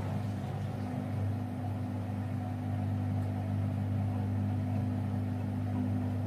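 Miele washing machine running: a steady low motor hum, with a higher tone joining in right at the start.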